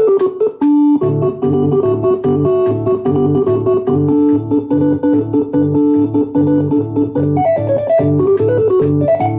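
Hammond-style organ sound from an electronic stage keyboard, playing a fast melody over a steady low pulse about twice a second. There is a short break with one held chord just after the start.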